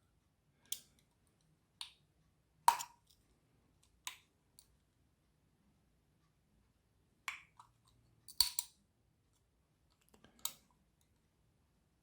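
Scattered sharp clicks and taps of a small LED torch's parts being handled and worked at by hand while the glued-in LED array is freed. There are about eight of them, the loudest about three seconds in and a quick cluster about two-thirds of the way through.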